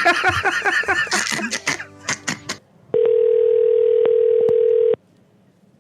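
Men laughing and talking, then a steady telephone dial tone for about two seconds that starts and cuts off abruptly, with a few clicks on the line.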